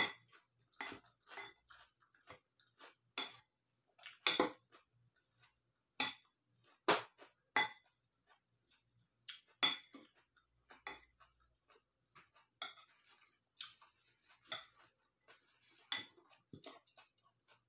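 A fork clinking and scraping against a salad bowl while someone eats: irregular sharp clicks with a brief ring, one or two a second.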